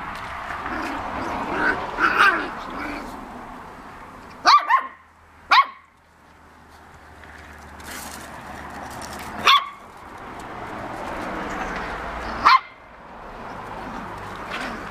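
Puppies play-fighting, giving short, high-pitched barks: a quick pair, another a second later, then two single barks a few seconds apart.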